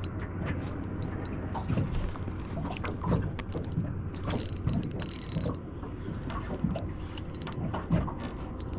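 Spinning reel being wound in while playing hooked tailor up to the boat: gear whirr and small clicks from the reel and handle. A steady low hum runs underneath, with a short hiss about four seconds in.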